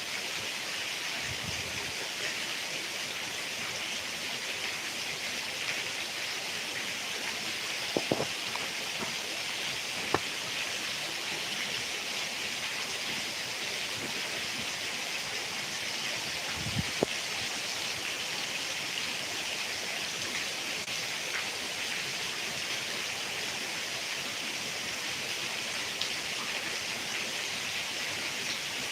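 Heavy rain falling steadily with an even hiss. A few louder drops or knocks strike sharply now and then.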